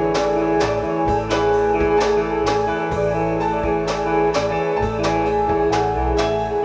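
Band music: guitar notes ringing over a drum kit keeping a steady beat.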